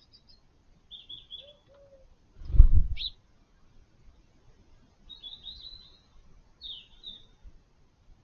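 Small birds chirping in short runs of quick notes, with a low thump, the loudest sound, about two and a half seconds in.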